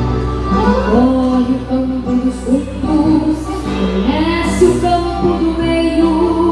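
A child singing a gaúcho native song (canção nativa) into a microphone, accompanied by piano accordion and guitar, amplified through the stage PA.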